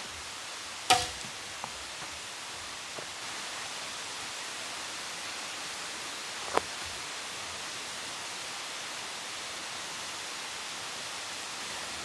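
A sharp knock with a brief ringing tone about a second in, then a softer click around six and a half seconds, over a steady outdoor hiss.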